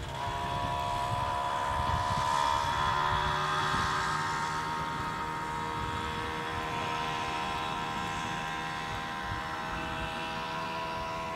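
Piaggio Ciao moped's two-stroke engine buzzing at steady high revs as it rides away, the sound slowly fading with distance.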